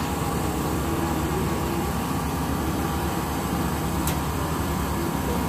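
Steady outdoor background noise, a low rumble with hiss, with faint distant voices in the first half and a faint click about four seconds in.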